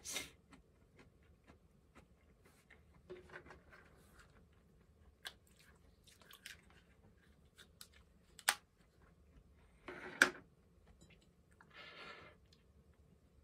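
Quiet chewing and mouth sounds, with a few sharp clicks scattered through. Near the end comes a short scrape as a ceramic mug is lifted off the table.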